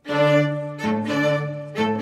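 Background music: a melody of held notes that change about once a second.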